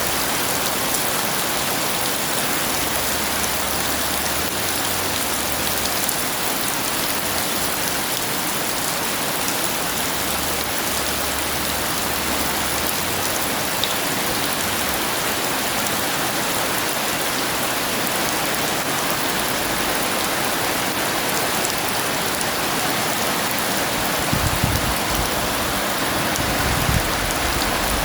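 Heavy rain pouring down in a steady, dense hiss. A few brief low rumbles come near the end.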